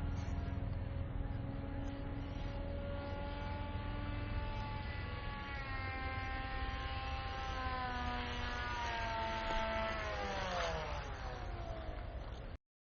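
Electric brushless motor and propeller of an RC foam jet whining steadily in flight. Its pitch sinks slowly, then drops steeply about ten seconds in, and the sound cuts off shortly before the end.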